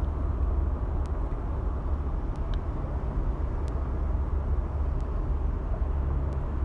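Steady low rumble with an even hiss above it and a few faint ticks.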